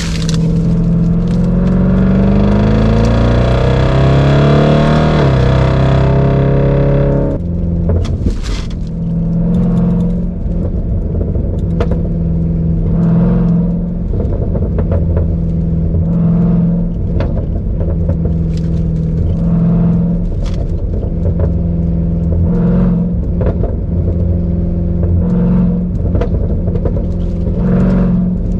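Supercharged 6.2-litre HEMI V8 of a Jeep Grand Cherokee Trackhawk with a GtHaus Meisterschaft exhaust, heard from inside the cabin. It accelerates hard with the pitch rising through the revs and a gear change about five seconds in, then the throttle is lifted about seven seconds in. From there it settles into a steady, lower cruise, with short sharp sounds every few seconds.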